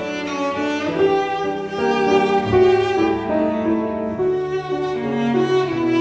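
Background music: a slow melody of long, held string notes over a lower line.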